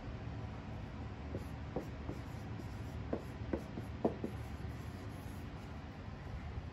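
Dry-erase marker writing on a whiteboard: a string of short squeaks and taps of the felt tip, bunched between about one and four and a half seconds in, over a steady low hum.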